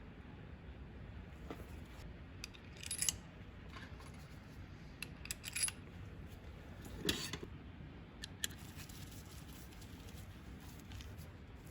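Small parts and tools being handled by hand, giving a few scattered light clicks and clinks over a steady low hum.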